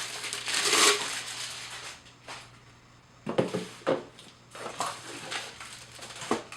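Packaging rustling and crinkling as a blender jar and its parts are unpacked. About a second in there is a louder rustle, then a few sharp knocks of hard parts being handled and set down.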